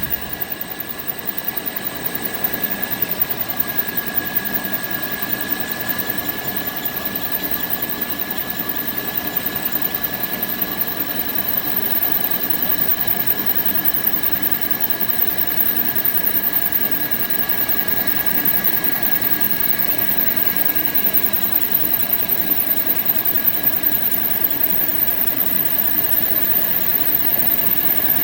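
Machine running steadily with a constant high whine over a broad mechanical noise.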